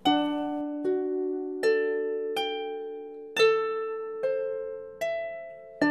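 Slow background music: single plucked-string notes, a new one about every second, each ringing on and fading before the next.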